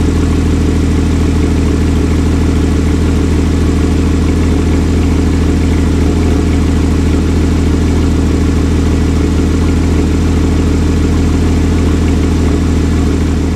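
Porsche Cayman S's 3.4-litre flat-six engine idling steadily through its sports exhaust.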